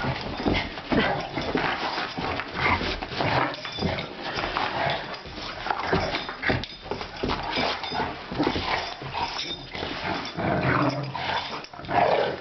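A Rottweiler and another large black dog play-fighting, growling in short irregular bursts as they scuffle together.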